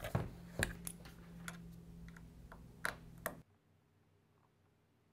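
Light clicks and knocks of a MacBook Air's aluminium case being set down and handled on a tabletop, several separate taps over about three seconds. Then it cuts off suddenly to near silence.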